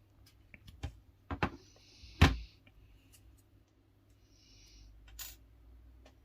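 A few light clicks and knocks from handling a phone and its small parts on a desk, the loudest about two seconds in, with two short soft rustles between them.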